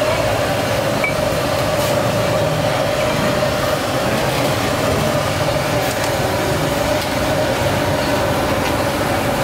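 Gas burner running under a large noodle-soup stockpot, a steady roar with a constant hum.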